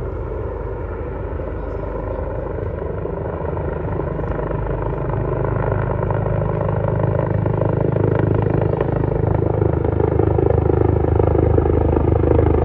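Medical helicopter in flight, its engine and rotor sound growing steadily louder as it approaches to land.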